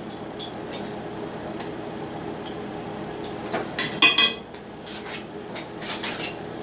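Wooden chopsticks clicking and clattering against a ceramic bowl and tableware, a few light taps near the start and a louder cluster about four seconds in, over a steady low hum.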